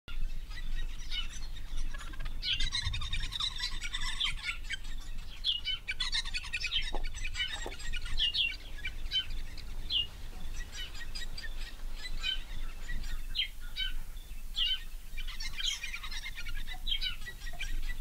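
A flock of sociable weavers chattering at their colony: many short, quick chirps overlapping in a busy twittering, thickest in the first half.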